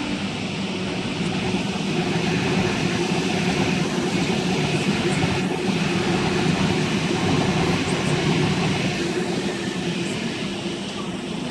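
Electric suburban train running through the station, a steady rumble with a low hum that builds, holds through the middle and eases off toward the end.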